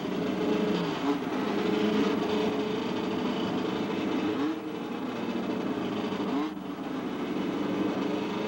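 Several saloon race car engines running together at idle, with the revs rising briefly now and then as they are blipped.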